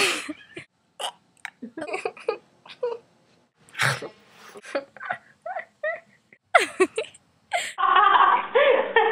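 A string of short, odd vocal noises (squeaks, whines and grunts) with gaps between them, and a denser, muffled stretch of sound near the end.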